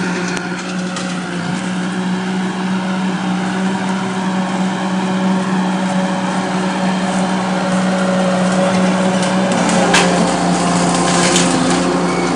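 Compact track loader's diesel engine running steadily under load while its grapple shoves a pile of brush, with branches cracking and snapping about ten seconds in and again just after.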